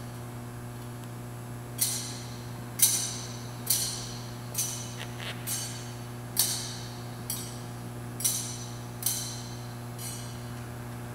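Metal censer (thurible) chinking against its chains as it is swung, about ten sharp ringing clinks at uneven intervals, typical of a priest incensing the altar at the offertory. A steady low hum runs underneath.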